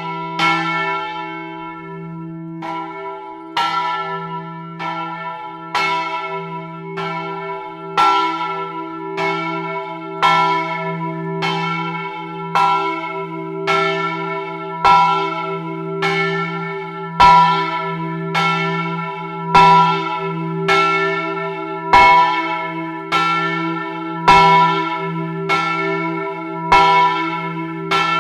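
A single church bell swinging in its tower frame, its clapper striking about once a second. Each stroke rings on over a steady low hum, alternating stronger and weaker, and the strokes grow louder over the span.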